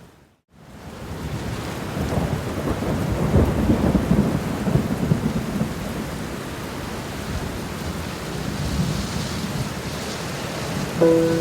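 Steady heavy rain with a long rolling rumble of thunder that builds about two seconds in and fades over the next few seconds. The sound drops out for a split second at the start. A few soft sustained musical notes enter near the end.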